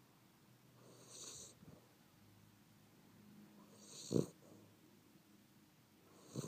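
A sleeping pet snoring lightly: three snoring breaths about two and a half seconds apart, the second and third with a short, sharp snort.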